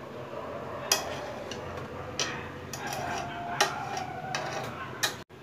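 A spoon stirring a watery chicken-and-rice mixture in a metal pot, knocking sharply against the pot about five times.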